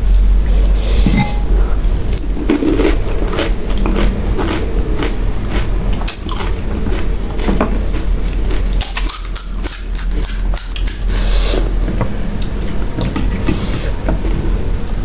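Close-miked crunching as crisp pani puri shells are bitten and chewed: many sharp cracks, coming thickest about nine to eleven seconds in.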